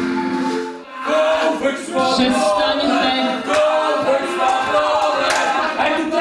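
A steady held chord stops about a second in. Then several voices sing together without instruments, in a choir-like chant.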